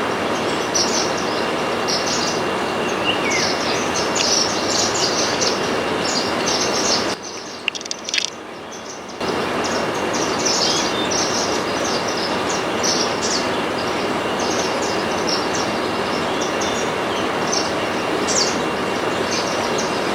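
Many short, high chirps of small finches, munias such as Indian silverbills, over a loud steady rushing noise. The rushing drops away for about two seconds near the middle, leaving the chirps more exposed.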